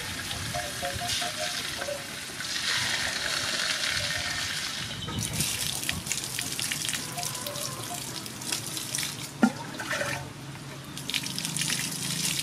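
Whole sole frying in hot oil, a steady sizzle; about five seconds in it gives way to water poured from a metal bowl over a bunch of green onions, splashing onto the ground. One sharp click about nine seconds in.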